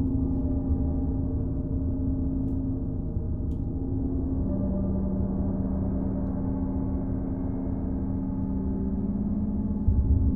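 Tibetan gongs ringing in a long, layered drone of overlapping tones over a deep rumble. A new tone rises out of the wash about halfway through, and a fresh low swell comes in near the end as the gongs are played again.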